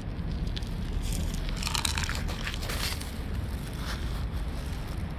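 Cats crunching dry kibble: irregular crisp crunches, several to the second, over a steady low rumble.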